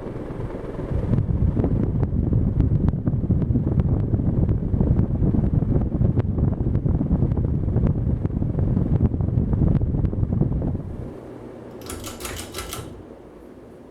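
Hunter Innova ceiling fan running at speed: a loud rumble of moving air with rapid ticking, easing off about eleven seconds in. A brief bright rattle follows near the end.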